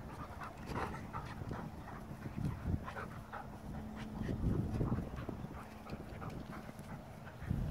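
A goldendoodle and a Bernese mountain dog puppy play-wrestling on grass: irregular scuffles and soft thumps, with the dogs' panting and mouthing noises.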